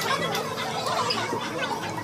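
Restaurant din: indistinct chatter of other diners mixed with small clicks and clatter.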